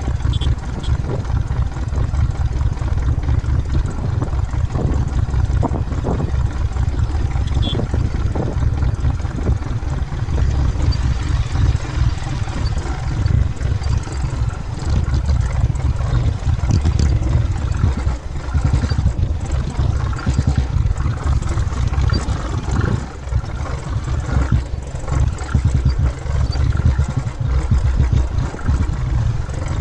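Motorcycle engine running at low revs as the bike rides downhill over a rocky dirt trail, under a heavy low rumble of wind on the microphone. Occasional knocks come from the bike jolting over the rough ground.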